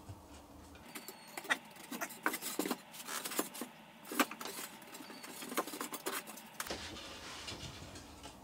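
Irregular light clicks, taps and small metallic clinks of circular saw blades and wooden rack parts being handled and set side by side.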